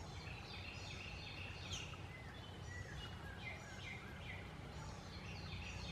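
Several small birds chirping and singing outdoors, with short, quickly repeated notes, many slurring downward, over a steady low background hiss.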